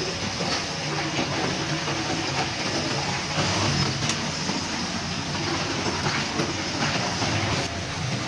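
Steady rumbling machine noise with a hiss, running without pause.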